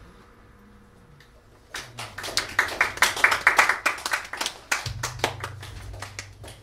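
A small audience clapping in a small room, starting about two seconds in and thinning out toward the end.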